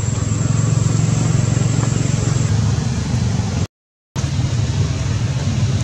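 Steady low rumble of an engine running nearby. The sound cuts out completely for about half a second a little before the four-second mark.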